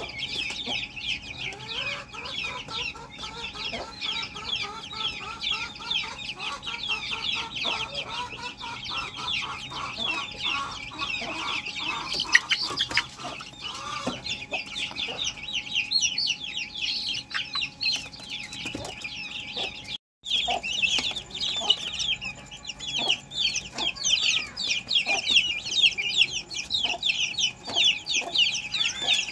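Young chickens in a coop: many chicks peep rapidly and continuously, high-pitched. For the first half, lower, repeated clucking and trilling calls from older juvenile chickens join in. The sound drops out completely for a moment about two-thirds of the way through.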